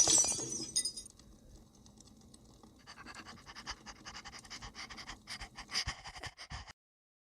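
A dog panting in quick, quiet, rhythmic breaths, cutting off suddenly near the end.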